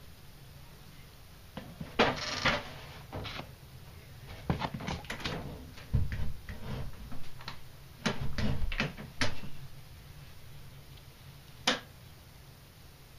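Handling noise: a run of irregular knocks, clicks and short rustles as the camera is moved about among the terrarium's artificial fern leaves, then one sharp click near the end.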